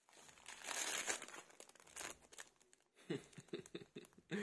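Thin plastic packaging crinkling and rustling as a small plastic bag is handled and pulled open, loudest in the first second.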